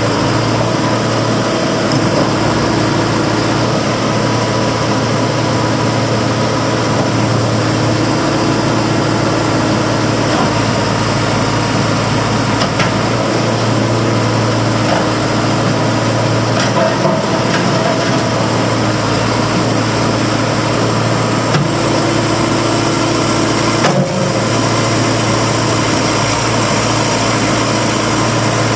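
2005 JCB 214 backhoe loader's diesel engine idling steadily, with a couple of brief knocks.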